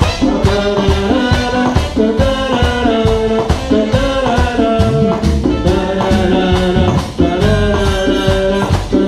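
Latin dance band playing live, a horn section holding chords over a steady percussion beat.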